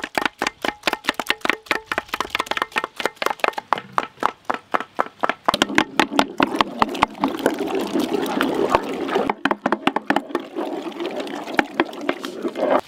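Cooked apple pulp being pounded with wooden pestles in a large metal pot: a fast run of wet thuds, several a second, that turns about halfway into a denser, continuous squelching churn as the pulp becomes a smooth mash.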